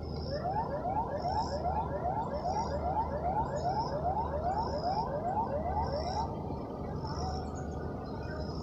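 Emergency warning siren being tested, sounding a fast series of short rising whoops, about two a second, which stops about six seconds in.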